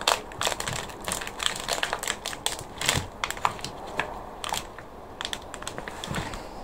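Thin plastic seedling module tray crinkling and crackling in irregular sharp clicks as gloved hands squeeze and work it to free a seedling plug. The clicks thin out near the end.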